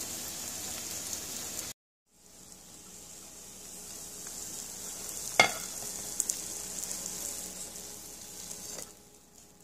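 Egg omelet with bitter melon and SPAM sizzling steadily in a frying pan. The sizzle cuts out abruptly just before two seconds in, then builds back up, with one sharp clink about five seconds in and a few lighter ticks after it as the omelet is slid out onto a plate. It fades away near the end.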